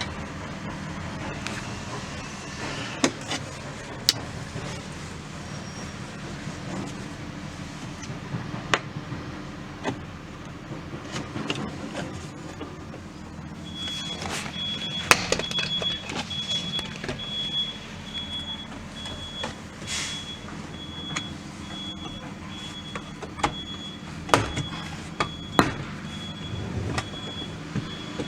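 Scattered clicks and knocks of tools and plastic trim clips as the sliding-door trim panel of a 2015 Dodge Grand Caravan is pried loose, over a low steady hum. About halfway in, a high-pitched beep starts, repeating evenly about twice a second.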